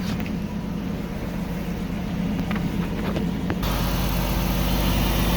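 2006 Chrysler 300's engine running steadily at idle, now that a new fuel pump is in: the crank-but-no-start fault is cured. About three and a half seconds in, the sound turns suddenly louder and fuller.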